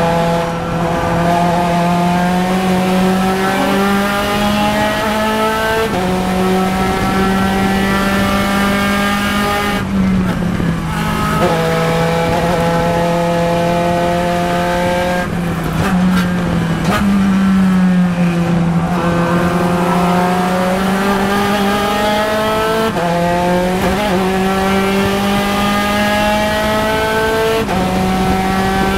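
In-car sound of a Spec Racer Ford Gen 3's 1.6-litre Ford four-cylinder engine at racing speed. It climbs in pitch as it pulls, drops abruptly at gear changes and throttle lifts around ten seconds in and again around sixteen seconds, then climbs again under full throttle.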